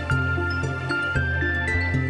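Calm new-age background music: sustained melodic notes changing every half second or so over a steady low bass.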